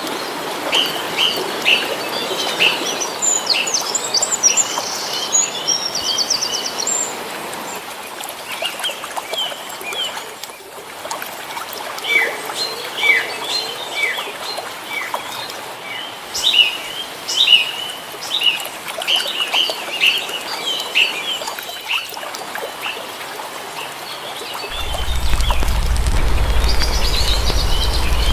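Small birds chirping and calling over and over, in short sharp notes with a few fast trills. Near the end a low steady rumble starts underneath.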